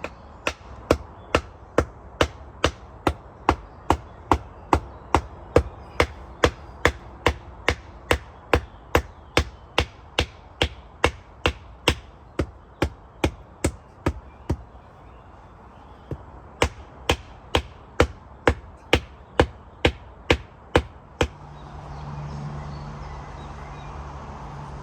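Steady hammer blows driving a wooden stake into the ground, a little over two strikes a second, pausing briefly about two thirds of the way through and then resuming. Near the end the strikes stop and a low steady hum comes up.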